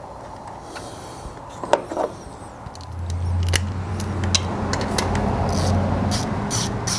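Metal clicks and clinks of hand tools and the bracket being worked around the engine's vacuum pump bolts, with a steady low hum joining about three seconds in.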